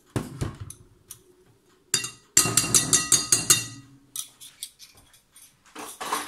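Metal hand-mixer beaters knocked against the rim of a glass bowl to shake off whipped egg whites. About two seconds in there is a rapid run of ringing clinks, about eight a second for roughly a second, and around it a few softer knocks and a short scraping clatter near the end.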